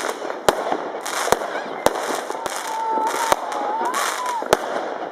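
Fireworks going off: about six sharp bangs, unevenly spaced roughly half a second to a second apart, over continuous crackling.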